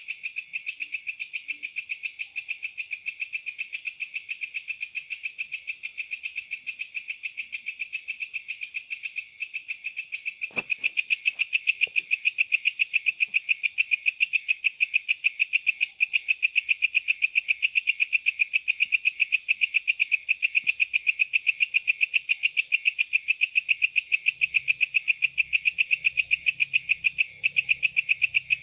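A night insect calling in a continuous train of rapid, evenly spaced pulses, high-pitched and steady. It gets louder about ten seconds in.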